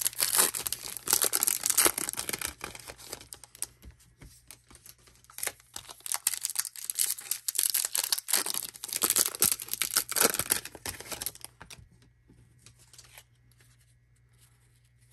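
Two baseball card packs' wrappers being torn open and crinkled by hand, in two long stretches of crackling with a short lull between; only faint light handling clicks near the end.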